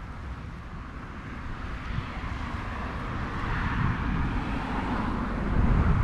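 Engine noise of a passing vehicle swelling in the background, with wind buffeting the microphone and getting louder toward the end.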